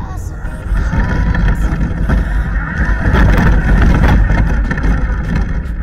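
ZD Racing RC buggy driving along an asphalt street, heard from a camera riding on the car: a loud, steady rush of drivetrain and tyre noise with a few small knocks.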